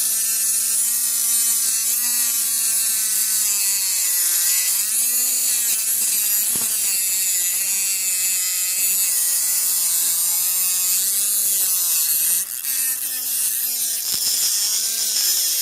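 Homemade mini grinder with a small 3-volt DC motor running at speed: a steady motor whine over a high hiss, its pitch wavering up and down.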